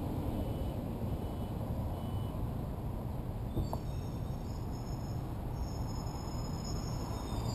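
Steady low background rumble with no voice, and a faint tick about three and a half seconds in.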